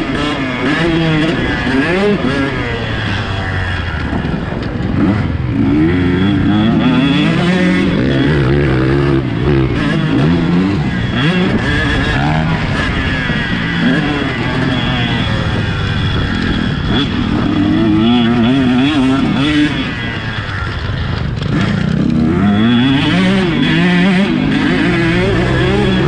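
KTM 150SX two-stroke single-cylinder dirt bike engine being ridden hard, its pitch rising and falling over and over as the throttle is opened and shut and gears change.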